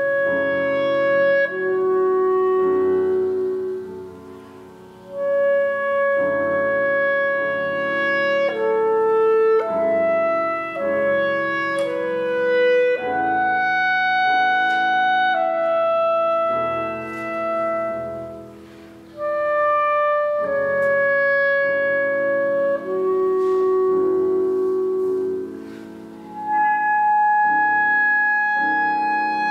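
Solo clarinet playing a melody of long held notes, with piano accompaniment. It moves in phrases, with short breaks between them about a fifth of the way in, about two-thirds of the way in and near the end.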